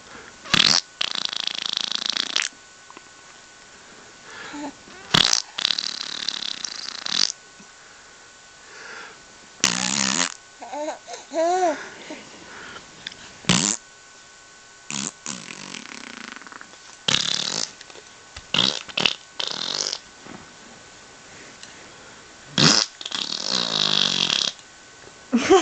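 A person making fake fart noises, about half a dozen long raspberry-like blows spaced a few seconds apart. Between them a baby makes short vocal sounds.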